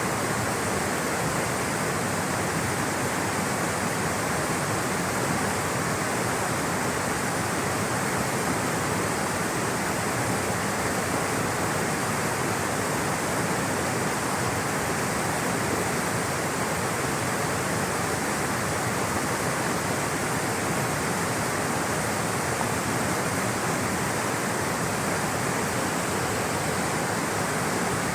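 Rushing water flowing steadily in a constant, unbroken rush.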